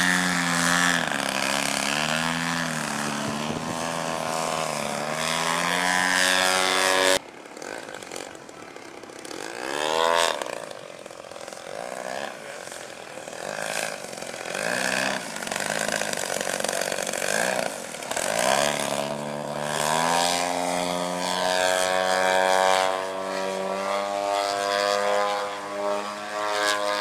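Engine and propeller of a large radio-controlled aerobatic model airplane, the pitch rising and falling with quick throttle changes while the plane hangs nose-up in a hover. About seven seconds in the sound drops suddenly to a fainter level, then the engine swells again and holds a steady higher pitch before fading near the end.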